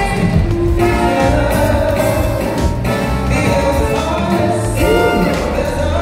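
Show music with singing: held notes over a steady low bass line, with a sliding note about five seconds in.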